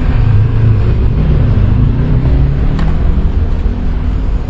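A loud, steady low rumble with no speech.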